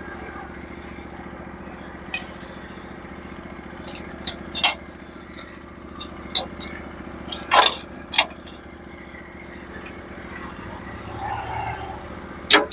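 Portable bandsaw sawmill's engine running steadily, with sharp metal clinks and knocks scattered between about four and eight seconds in and again near the end.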